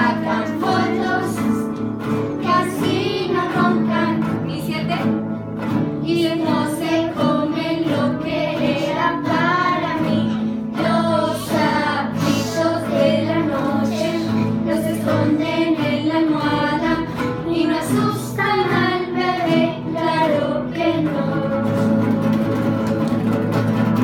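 A group of children strumming small acoustic guitars together in chords, with children's voices singing a song over them.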